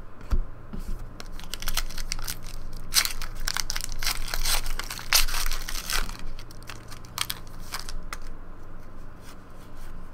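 Foil trading-card pack wrapper (Upper Deck Goodwin Champions) being torn open and crinkled by hand, a dense run of crackling from about 3 to 6 seconds in, with lighter rustles before and after.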